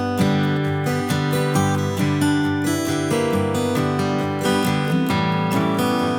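Background music: strummed acoustic guitar with notes changing every half second or so.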